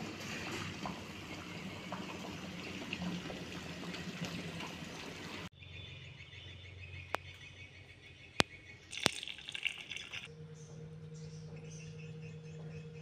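Kitchen water sounds while dried bottle gourd is rinsed: a steady rush of running water that cuts off abruptly about five seconds in, then a few sharp clicks of handling, and a steady low hum with water from about ten seconds in.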